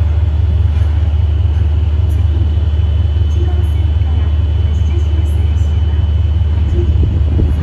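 Diesel freight locomotive idling: a steady low rumble, with a faint steady high tone above it; the rumble turns rougher near the end.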